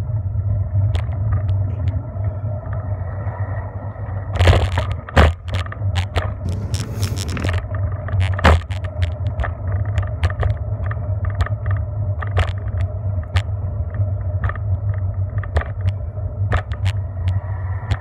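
Bicycle rolling over asphalt and concrete sidewalk: a steady low rumble with frequent sharp knocks and rattles as it bumps over joints and rough pavement, with louder clusters of rattling about four and a half and seven seconds in.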